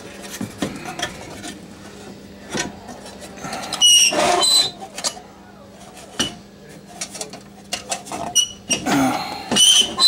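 Sheet-metal clanking and scraping as a furnace heating element assembly is worked back into its housing, with ringing metallic clinks in two clusters, about 4 s in and near the end, under a faint steady hum.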